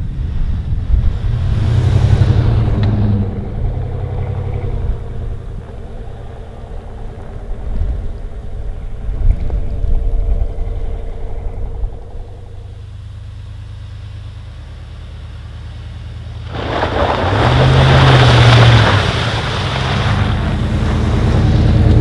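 Pickup truck engine running as it drives through snow, with a low steady drone; it swells about two seconds in, eases off in the middle, and a loud rushing noise rises over it from about sixteen seconds on as the truck comes close.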